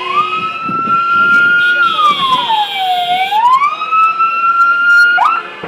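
Emergency vehicle siren wailing loud and close: a slow rise, a hold at the top, and a slow fall in pitch, twice over, then a quick dip and rise just before it cuts off near the end, as emergency services respond to a fire.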